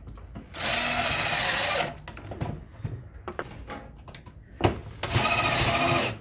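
An electric drill driving screws in two runs of about a second each, the motor's whine dipping in pitch as it takes the load, with light knocks of handling in between.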